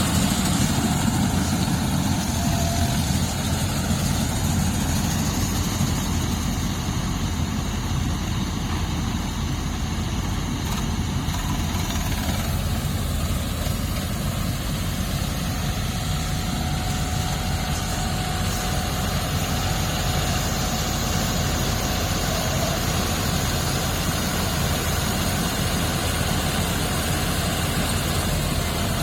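Engine of a rice-harvesting machine running steadily at an even pitch, with no revving or stops.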